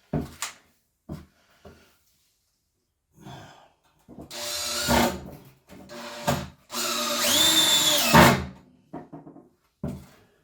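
Power drill running in two bursts, a short one and a longer one of about a second and a half, its motor pitch rising, holding and winding down. A few short knocks come just before.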